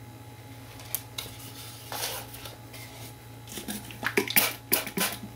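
Handling noises of a stretched canvas being tilted and set down on a paper-covered work table: scattered knocks, taps and clicks, busiest and loudest in the second half, over a low steady hum.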